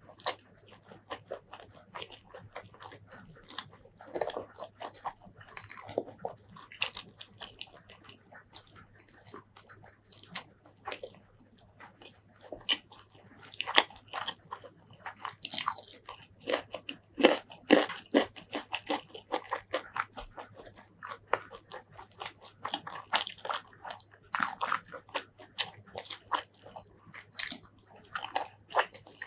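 Close-miked eating of pork curry and rice: continuous wet chewing with sharp, crunchy bites, the loudest bites coming in clusters about halfway through and again a little later.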